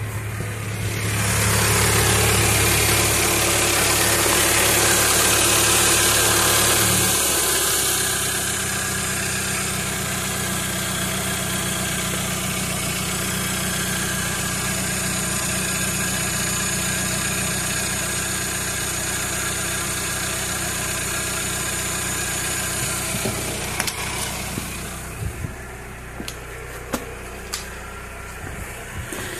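A 2000 Toyota Camry 2.2's four-cylinder engine idling steadily, with no fuel leaking at the newly fitted fuel filter. It is louder with a hiss for the first several seconds, then settles to a lower, even hum. It grows quieter near the end, with a few light clicks.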